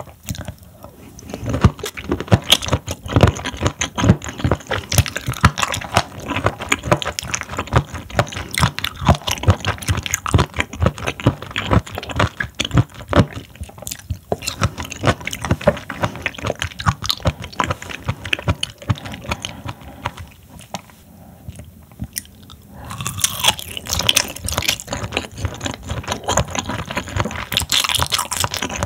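Close-miked chewing of raw seafood sashimi: a dense run of short, sharp mouth clicks, with a brief quieter lull about three quarters of the way through.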